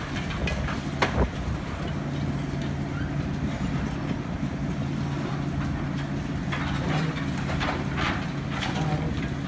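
Diesel engine of a high-reach demolition excavator running steadily, with the cracks and knocks of concrete being crunched off a silo wall by its hydraulic demolition grab and chunks dropping onto rubble. There is a sharp crack about a second in and several more near the end.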